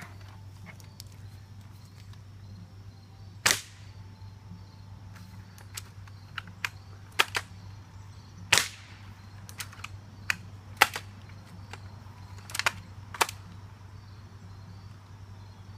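A 6 mm airsoft sniper rifle fired repeatedly, about six sharp snaps a few seconds apart at first and then quicker, with fainter clicks between the shots.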